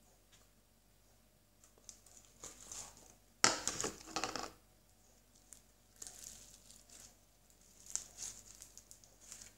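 Slime mixed with small beads being squeezed and pulled apart by hand, giving soft crinkling crackles. One louder, rustling burst lasting about a second comes about three and a half seconds in.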